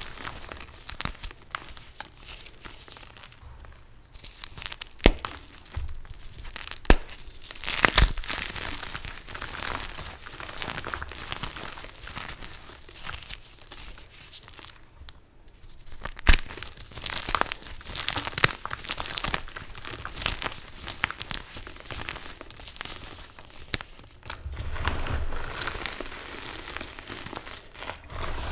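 Hands crushing dyed Chalklate gym chalk blocks: a continuous crunching and crumbling of chalk and powder, with several sharp snaps, the loudest around five, seven, eight and sixteen seconds in.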